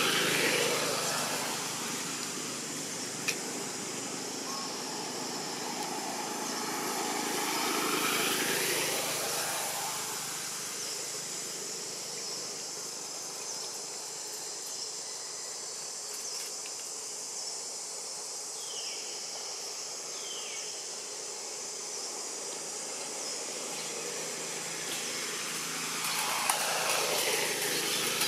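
Outdoor ambience: motor vehicles pass three times, each swelling and fading with a falling pitch, over a steady high insect hiss. Two short falling chirps come about two-thirds of the way through.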